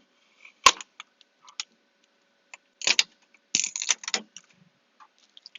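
Sharp plastic clicks and short rustling, scraping bursts as tape and the shipping retainer holding the print head are worked loose from an Epson SureColor F2100 DTG printer. A loud click comes under a second in, with busier bursts of rustling around three and four seconds in.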